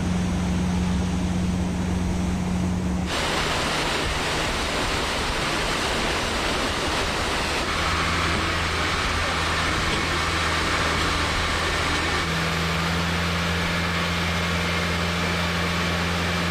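Motorboat underway at speed: the outboard engine's steady drone under a constant rush of wind and water. The sound shifts slightly at a few cuts.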